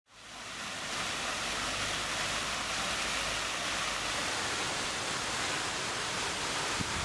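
Rows of fountain jets splashing steadily, a constant rush of falling water that fades in over the first second.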